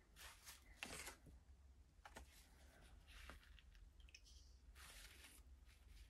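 Near silence with a few faint, short brushing and scratching sounds: a round watercolour brush stroking wet paint onto textured watercolour paper.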